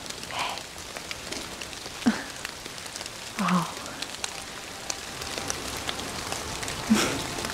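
Outdoor ambience with a steady patter and crackle like rain or dripping on leaves. A few short low sounds come about two, three and a half and seven seconds in.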